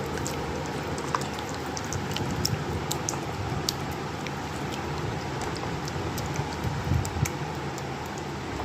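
Food sizzling in a hot pan, a steady frying hiss with scattered pops and crackles throughout.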